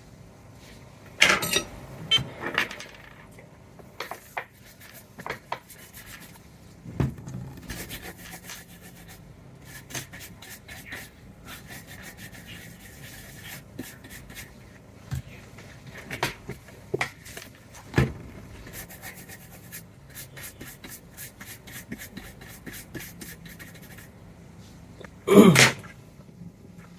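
Hand tools being handled at a repair bench: scattered light knocks and clicks, with stretches of fine rapid scraping. One louder rustle-and-knock comes about 25 seconds in.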